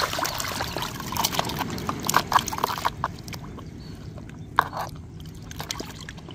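Liquid splashing and sloshing in a plastic tub as an action figure is dunked and moved about in it, with dripping; busy for about the first three seconds, then only a few splashes.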